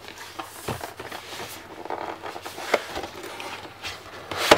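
Cardboard product box being handled and pried open at its top edge: rubbing and scraping of the card, with a few small clicks and one sharp snap near the end.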